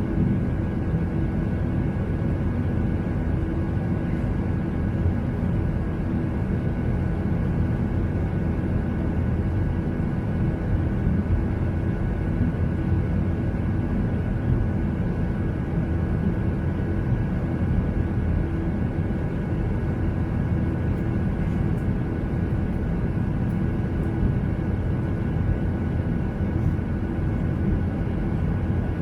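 Steady cabin noise inside a jet airliner in flight: the low rush of the engines and airflow, with a faint steady hum and whine above it.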